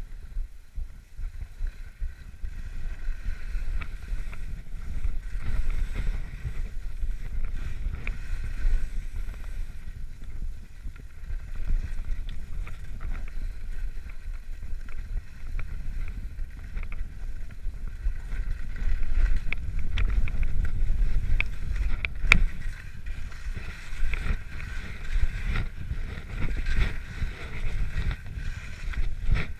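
Skis running over fresh snow while wind buffets a GoPro Hero3's microphone: a steady rushing low rumble with a hiss over it. A single sharp click comes about 22 seconds in.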